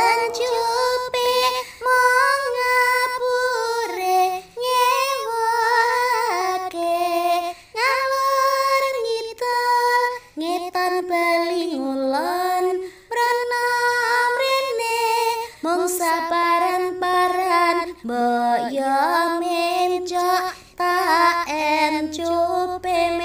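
A female voice singing a Javanese song about a butterfly: phrases of held, gliding notes with brief pauses for breath between them.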